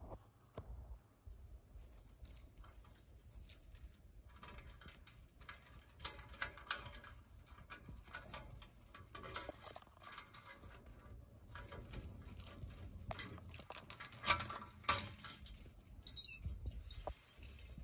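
Thin plant stems rustling and ticking against a hand-held phone: irregular light crackles and rustles with a low handling rumble, and a sharper cluster of crackles about fourteen seconds in.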